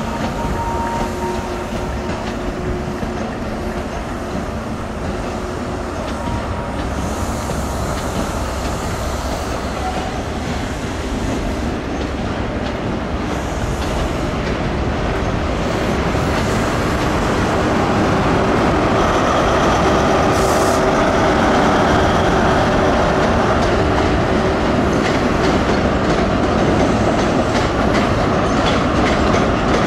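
ScotRail InterCity 125 (Class 43 HST) departing at low speed: diesel power car engines running and wheels clicking over rail joints and pointwork as the coaches pass. The sound grows louder in the second half as the rear power car comes by.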